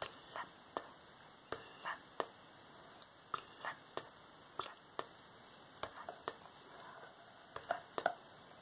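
Close-microphone ASMR sounds: a string of soft, sharp clicks, roughly one or two a second, with short breathy whispers between them.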